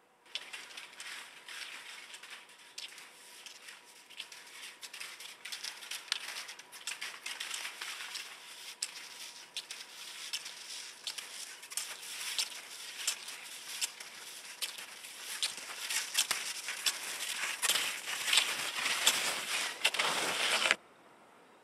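Skis and ski poles crunching through dry snow in an irregular stream of crackles, growing louder toward the end and then cutting off abruptly.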